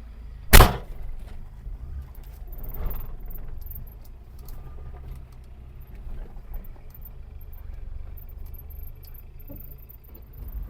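Low steady rumble of a car on the move, heard from inside, with one loud sharp knock about half a second in.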